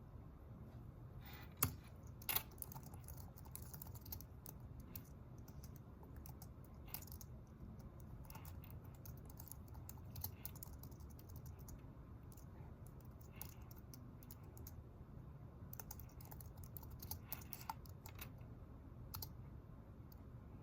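Irregular, quiet typing on a computer keyboard, light key clicks coming in uneven runs, with two sharper knocks about two seconds in, over a steady low room hum.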